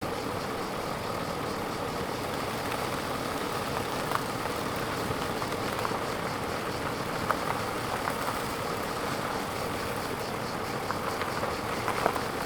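A steady mechanical drone, engine-like, with a few faint clicks scattered through it, the clearest about twelve seconds in.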